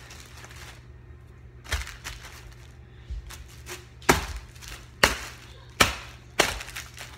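Bare feet stamping on empty plastic water bottles on a tile floor: a series of sharp cracks and crunches as the bottles are crushed, about one a second in the second half.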